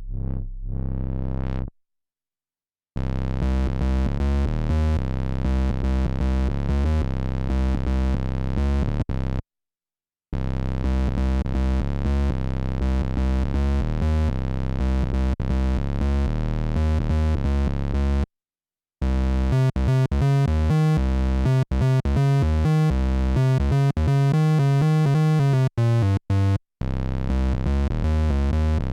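Korg Monologue monophonic analog synthesizer playing a run of separate sample clips. It opens with a held bass note under a rising filter sweep that ends a couple of seconds in, followed by several fast, rhythmic bass sequences, each broken off by a second or so of silence.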